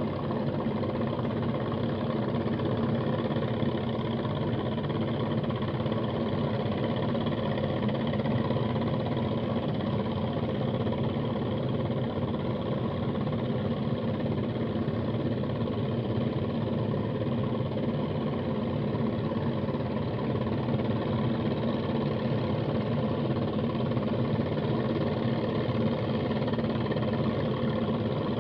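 A small engine running steadily at an unchanging idle, with an even drone of layered tones.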